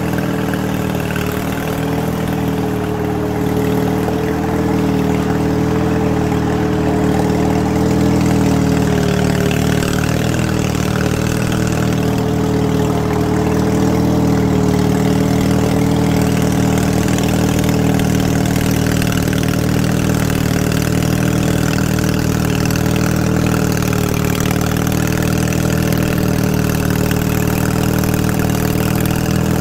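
Weed Eater riding lawn mower's engine running steadily as the mower drives through shallow water, growing a little louder over the first few seconds as it comes closer.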